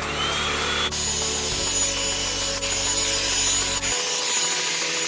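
Revlon One-Step hair dryer brush running: a steady rushing of air with a high fan whine, and a rubbing sound as the brush is drawn through the hair.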